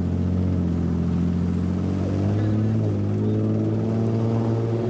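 Exhausts of lowered cars rolling slowly past at low revs, a loud, steady, deep drone that rises a little in pitch partway through.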